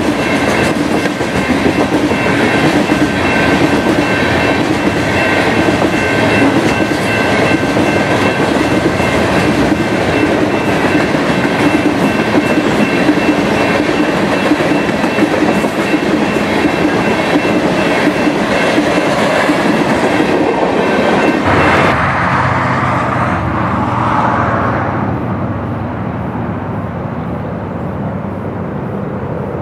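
Ballast hopper cars of a work train rolling past on steel rails: a steady rumble of wheels on track with a faint, thin high ring. About two-thirds of the way through it cuts to a much quieter, distant low rumble.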